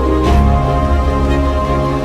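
Background music: a soundtrack with sustained chords and a steady beat.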